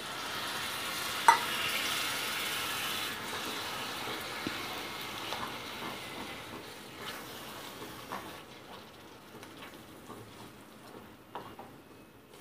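Tamarind juice poured into hot oil and grated mango ginger in a metal kadai, sizzling hard at first, the sizzle fading over the next several seconds as the mixture is stirred with a spatula. A single sharp knock about a second in, and light taps and scrapes of the spatula on the pan later.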